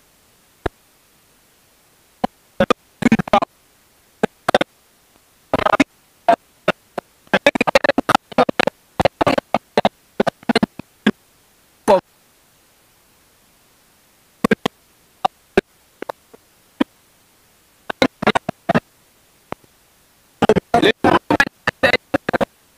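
Indistinct voices talking quietly among themselves, heard only as short broken snatches that cut in and out, with dead silence between them.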